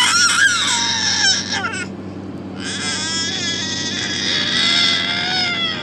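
A baby crying in long, high-pitched, wavering wails: one fades out about two seconds in, and a second long wail starts shortly after and runs on with a rising and falling pitch.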